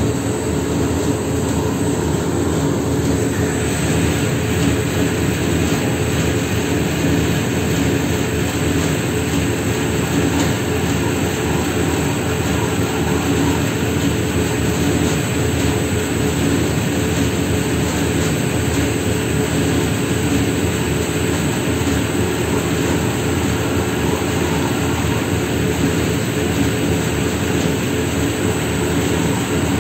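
Triple roll mill running steadily, its rollers turning as they grind thick red paste, giving a continuous mechanical hum that does not change.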